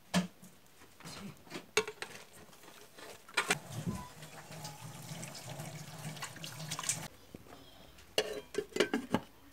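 Sharp metal clanks of a steel bowl against a cooking pot, then water pouring and splashing into the pot for about three seconds, and a quick run of clinks as the metal pot lid is handled near the end.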